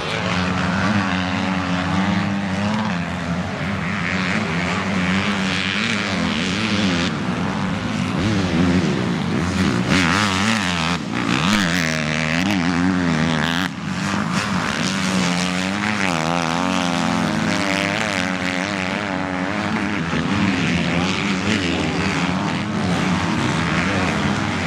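Several motocross bikes racing past on a dirt track, their engines revving up and falling back over and over as the riders accelerate, jump and shift through the corners.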